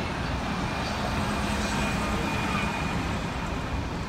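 Steady rush of road traffic from a multi-lane road, with a faint engine hum passing through about a second in.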